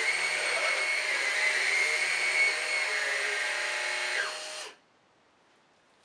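Numatic Henry Quick cordless stick vacuum running on carpet with its motorised brush roll on, a steady high whine. About four and a half seconds in it is switched off: the pitch drops briefly and the sound cuts out.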